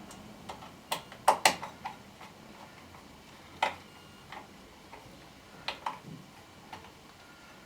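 Screwdriver working the terminal screws of a fuse board: a scatter of sharp, irregular clicks and small metallic knocks, the loudest pair about a second and a half in.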